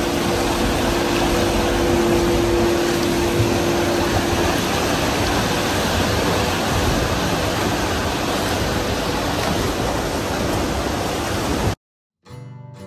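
Water rushing and splashing through a turning Archimedes screw hydro turbine, a steady even roar, with a steady machine hum for the first few seconds. It cuts off abruptly near the end and acoustic guitar music begins.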